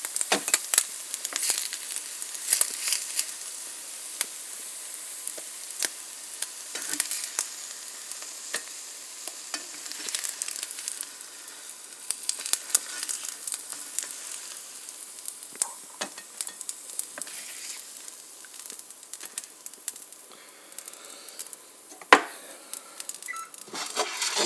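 Butter sizzling and crackling in a frying pan under slices of rye bread with eggs cooked in their holes, frying toward crisp. Near the end there is a sharp knock and a short clatter.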